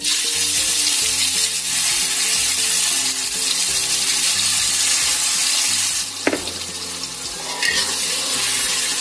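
Ground chili, shallot and garlic spice paste hitting hot oil in an aluminium wok. The loud sizzle starts abruptly and goes on as a spatula stirs it. A sharp knock comes about six seconds in, and the sizzle eases a little after it.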